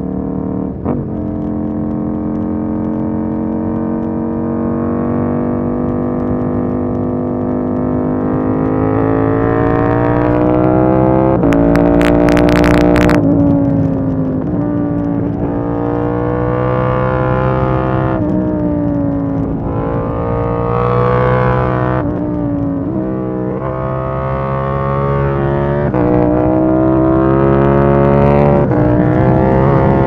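KTM 890 Duke R's parallel-twin engine pulling hard and easing off, its pitch climbing and then dropping again several times. A brief burst of sharp crackles comes about twelve seconds in, as the pitch peaks and falls away.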